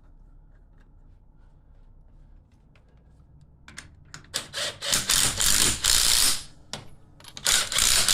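Lug nuts being run with a wrench during a wheel change: a few faint clicks, then from about halfway in, loud bursts of rapid mechanical clatter, the longest lasting about a second and a half.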